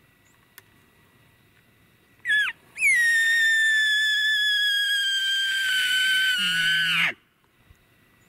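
An elk bugle: a short rising squeal about two seconds in, then one long high whistle that slowly falls in pitch and ends in a low grunt before cutting off suddenly.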